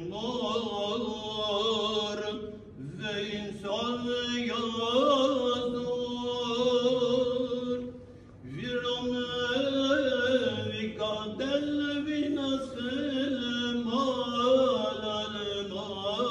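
A man chanting a prayer solo, holding long drawn-out notes that bend slowly in pitch, with two short breaks for breath, about three and eight seconds in.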